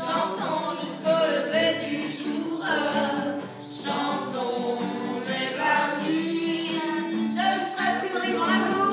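A woman singing live to her own strummed acoustic guitar, with other voices singing along.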